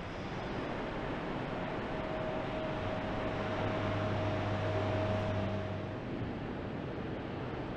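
Car plant machinery running: steady broad noise, with a higher steady whine from about one and a half seconds in and a low hum from about three seconds in, both stopping about six seconds in.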